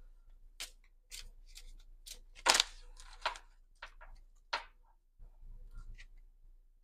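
Tarot cards being handled: a string of sharp, irregular clicks and snaps, about ten in all, the loudest about two and a half seconds in.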